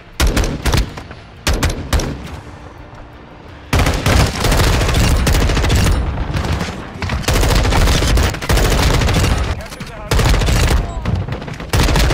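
Automatic rifle fire in a first-person shooter video game: a few short bursts, then near-continuous firing from about four seconds in, with brief pauses.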